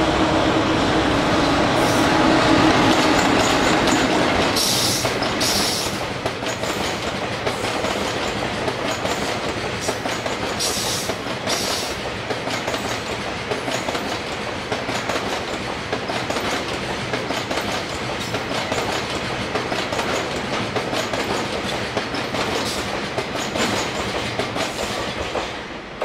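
A JR Freight EF210 electric locomotive passes close by with a steady hum for the first few seconds. A long string of tank wagons follows, rolling past with continuous clickety-clack of wheels over the rail joints, broken twice by pairs of short high-pitched squeals.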